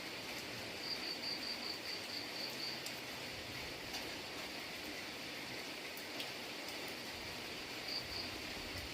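Steady hiss of rain falling, with a few faint drip ticks. About a second in, an insect adds a high-pitched pulsed chirping, roughly four pulses a second for two seconds, and chirps again briefly near the end.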